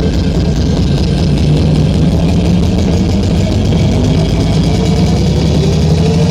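A large engine idling steadily with a deep, even hum.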